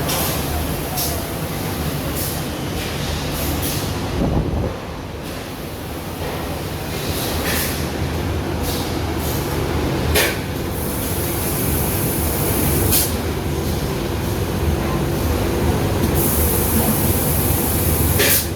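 Roof-tile painting line running: a steady machine hum with sharp knocks now and then, and two spells of high hiss from the colour-coat paint spray, one about ten seconds in and one near the end.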